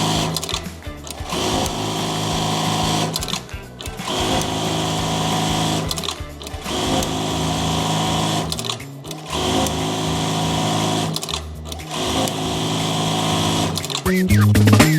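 Jaktec 1790 electronic buttonhole sewing machine running through repeated cycles of about two and a half seconds, stopping briefly between each, then falling silent near the end.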